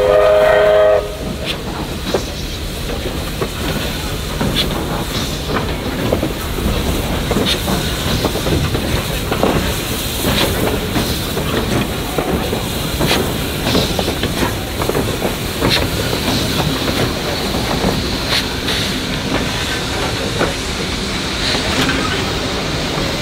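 A steam locomotive's whistle sounds a chord of several tones that stops about a second in. Then a steam locomotive, the Victorian Railways D3 class 639, rumbles past with irregular clanks and knocks from its running gear and wheels.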